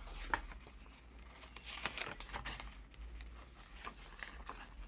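Paper pages of a handmade junk journal being turned and handled, rustling and crinkling irregularly with small clicks and taps.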